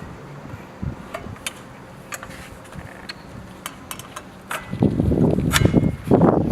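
Handling noise from the circular saw, with the motor not running: scattered light clicks and ticks, then denser, louder irregular knocking and rustling from about five seconds in.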